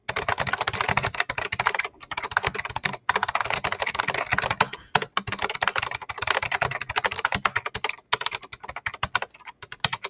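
Fast typing on a custom 3D-printed hall-effect keyboard rigged to an 8-channel relay board, so that each keystroke also fires the relays with a sharp click. It makes a dense, rapid clatter of clicks, broken by short pauses about 2, 3, 5 and 8 seconds in.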